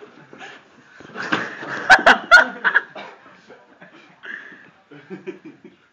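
Laughter, with a few loud bursts about two seconds in, then trailing off into quieter snickering.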